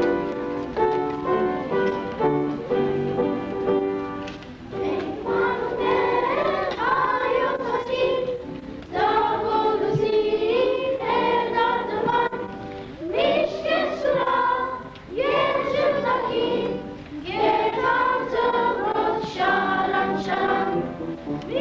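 Music: a few seconds of held instrumental notes, then a choir singing in phrases of about two seconds, with short breaks between them.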